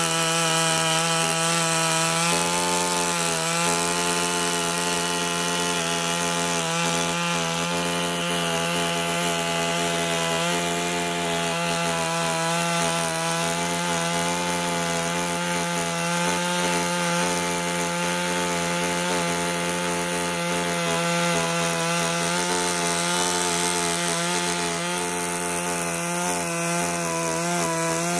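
Stihl MS 382 two-stroke chainsaw held at a steady high speed under load while cutting through a log, the engine note barely wavering.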